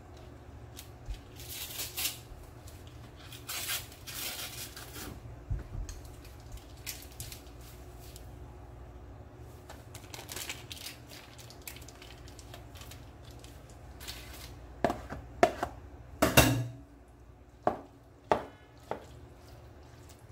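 Cream cheese packaging crinkling and rustling with small clicks, then in the last few seconds a run of sharp knocks and clatters from a metal spoon against a plastic mixing bowl of pasta.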